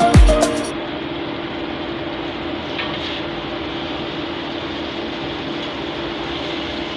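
Background music with a thumping beat stops under a second in, leaving a steady hum and hiss of kitchen background noise.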